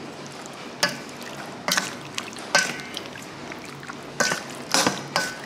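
A metal spoon stirs sauce-coated pork neck pieces in a stainless steel bowl. The spoon clinks against the bowl several times at irregular intervals, and some of the strikes ring briefly, over the softer sound of the meat being turned in the marinade.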